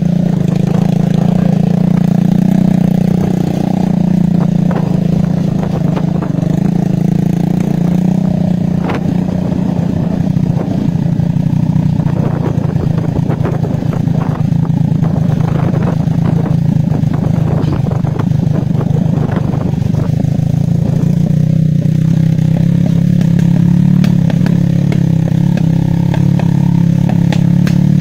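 Motorcycle engine running at a steady pace while riding along a bumpy dirt track, with scattered rattles and clatter from the rough ground.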